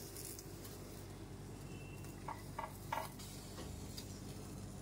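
A few faint clicks of steel tongs against a steel plate about two to three seconds in, as roasted brinjals are set down, over a low steady hum.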